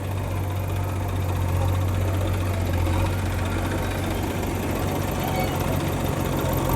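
Heavy diesel engine idling steadily, a deep, even hum with no change in speed.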